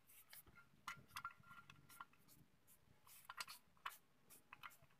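Faint, scattered light clicks and taps of metal transmission parts being handled and fitted into an open motorcycle engine crankcase.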